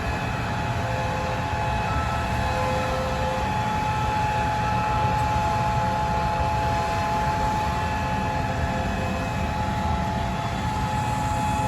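John Deere S660 combine harvester running steadily while harvesting corn: a constant low engine rumble with a steady high whine over it.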